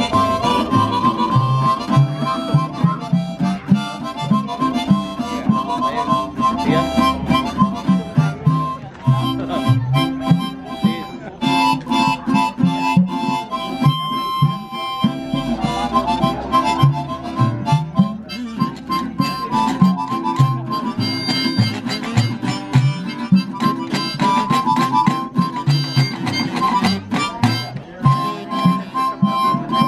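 Harmonica playing a tune in chords, accompanied by a guitar's rhythmic plucked notes, in an informal acoustic jam.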